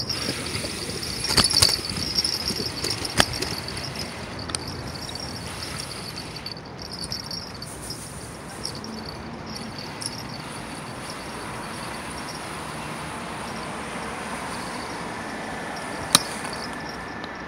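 Bicycle rolling over paved sidewalk: a steady rumble of tyres and wind, with a few sharp knocks and rattles from bumps, about one and a half, three, and sixteen seconds in.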